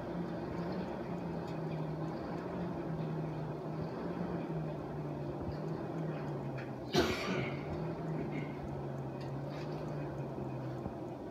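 Electric forge blower running with a steady low hum that sags a little in pitch, turned down to lower the fire's heat. A single sharp knock comes about seven seconds in.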